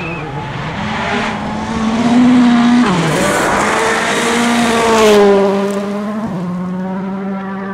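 Volkswagen Polo R WRC rally car, a turbocharged four-cylinder, revving hard as it comes through a gravel corner. The engine pitch dips briefly at about three seconds, then rises again as the car slides past with tyres and spraying gravel hissing loudest around five seconds. From about six seconds a steady horn tone holds on.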